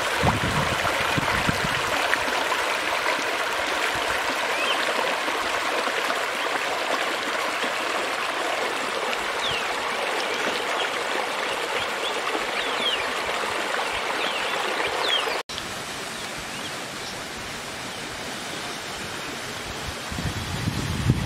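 Spring-fed stream rushing and splashing over rocks in a small cascade, a steady water noise. About fifteen seconds in, it cuts to a quieter, calmer flow.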